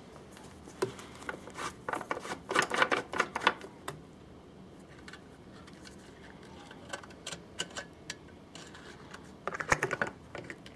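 Runs of quick, sharp clicks and small knocks of hard parts being handled, in two bursts: a longer one about two seconds in and a shorter one near the end, with a few scattered clicks between.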